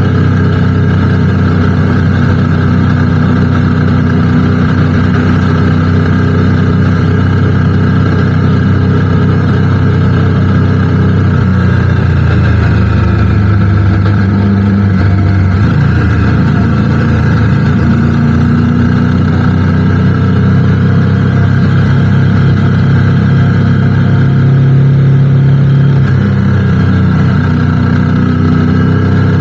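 Motorcycle engine running steadily under way. Its pitch drops and then rises again about halfway through, as the bike slows and picks up speed.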